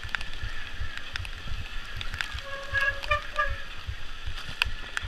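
Trek Slash 8 mountain bike descending wet dirt singletrack: tyres rolling over roots and rocks, with frequent rattles, clicks and low thumps from the chain and suspension. A short pitched squeal sounds about halfway through.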